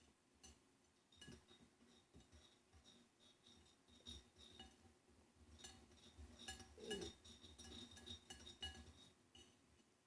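Cutlery clinking against a dish: many light, irregular taps that ring briefly, most frequent in the second half.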